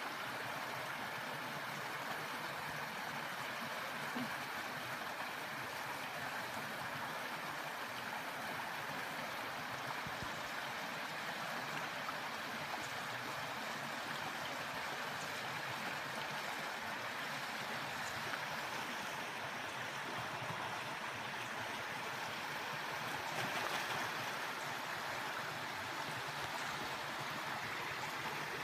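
Shallow river running over a rocky gravel bed: a steady rush of water.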